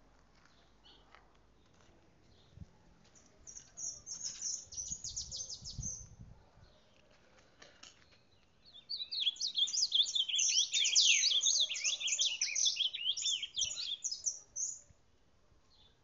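Ultramarine grosbeak (reina mora) singing a fast, high warbling song in two phrases: a short one about four seconds in and a longer, louder one from about nine seconds to near the end.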